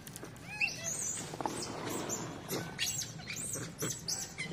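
Monkeys shrieking: a rapid string of short, high-pitched squeals, each rising and falling, starting about half a second in.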